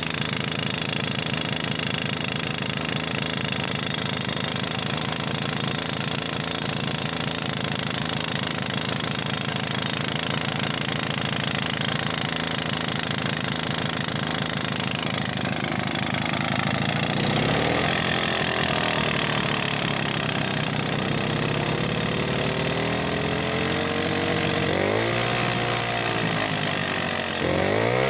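Wanderer 11AS's Sachs 98 cc two-stroke single-cylinder engine idling with a rattle ("klappert"), then revved up and falling back several times in the second half.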